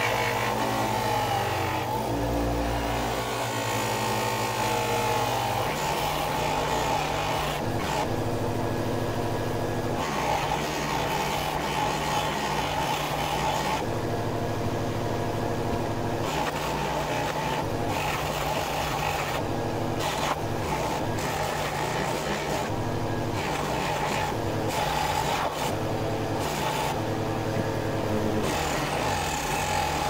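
A 6-inch bench grinder running with a buffing wheel, the steel head of a hatchet multitool pressed against the spinning wheel and worked back and forth to polish it. A steady motor hum runs under a rubbing, whirring sound that shifts every few seconds as the metal is moved on the wheel.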